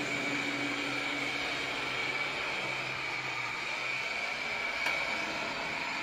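Roidmi EVE Plus robot vacuum running at a reduced, non-maximum suction setting: a steady whirring hum with a high whine. Its suction has not yet stepped up to carpet-boost power.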